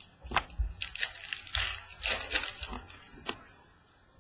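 Trading cards and their packaging being handled on a wooden table: a sharp tap, about two seconds of crinkling and rustling, then another tap.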